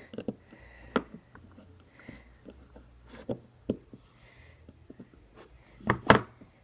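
Scattered clicks and knocks of small metal and plastic parts of an airsoft pistol being handled and worked loose, with a louder pair of knocks near the end.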